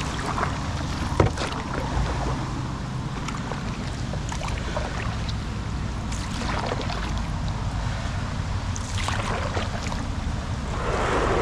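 Heavy rain on open water and wind buffeting the microphone, a steady rumble with many small patters, with the splashing of paddling a float tube across the water; a larger splash comes near the end.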